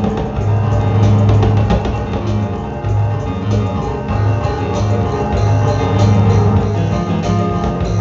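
Live instrumental band playing on keyboards and drum kit, a deep bass note sounding in long repeated swells under busy layered keyboard lines and drums.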